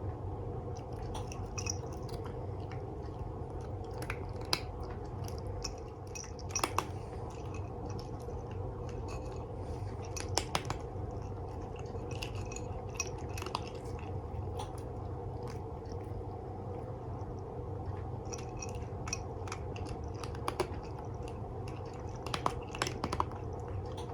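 A cat crunching dry food, with irregular clusters of sharp crunches and pauses between them, over a steady low hum.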